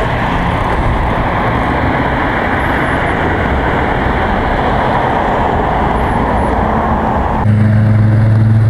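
Kawasaki Versys 650 parallel-twin motorcycle riding along, its steady engine hum under loud wind rush on the microphone. About seven and a half seconds in, the wind noise cuts off suddenly and the engine's low note comes up louder.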